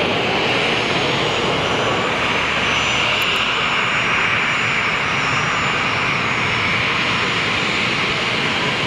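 The twin CFM56-3 turbofan engines of a Boeing 737-400 running at low taxi power: a steady jet rush with a whine strongest in the upper-middle range and faint high whistling tones above it.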